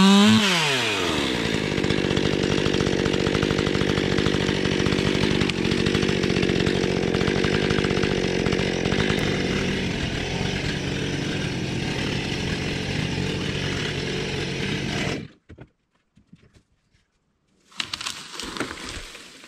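Two-stroke chainsaw dropping from high revs to a lower, steady running speed in the first second or so, then running steadily until it cuts off suddenly about fifteen seconds in. A few seconds of crackling near the end.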